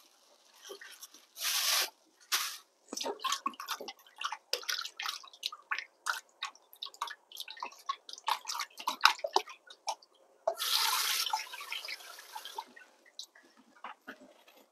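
Kitchen tap running in short bursts into a stainless steel sink, with splashing and dripping as a mud-coated salted egg is rubbed and rinsed clean by hand. The tap runs briefly about a second and a half in and again for about two seconds past the ten-second mark, with irregular small splashes in between.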